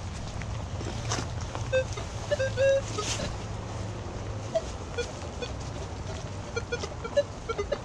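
Metal detector giving short target beeps as its coil is swept over the ground: a few beeps about two seconds in, then more, coming quicker, near the end. A low steady hum runs underneath, and there are a couple of sharp knocks around one and three seconds in.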